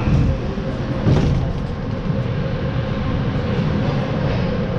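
Steady low rumble of ice-arena ambience picked up by a net-mounted action camera, with one brief knock about a second in.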